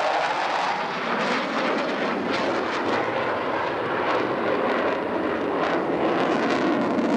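Jet roar of an F-14 Tomcat's twin engines during a steep pull-up overhead, a loud steady rushing noise with a slight fall in pitch near the start as it passes.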